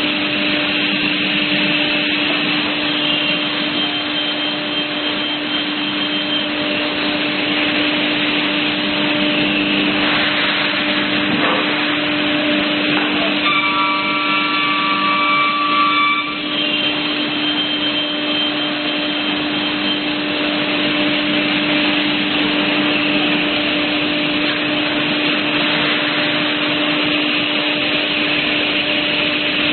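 Automatic-feeding CNC panel saw running: a steady, loud machine noise over a constant hum. For about three seconds near the middle, several higher steady tones sound together.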